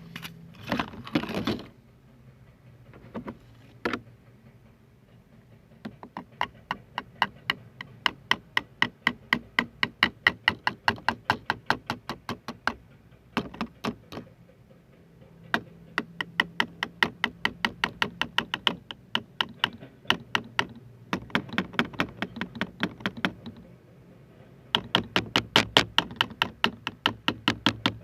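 Fingers tapping rapidly and rhythmically on a hard object, about four taps a second, in three long runs with short pauses between. A brief rustle comes just before the tapping begins.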